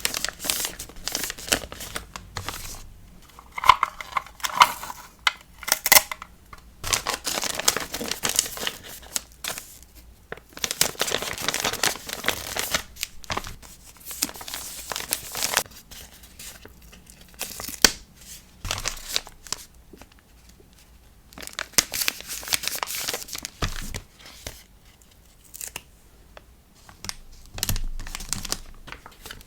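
Close-up handling of paper and plastic packing materials for a sticker order: crinkling, rustling and tearing in stretches, with a few sharp taps and quieter pauses between.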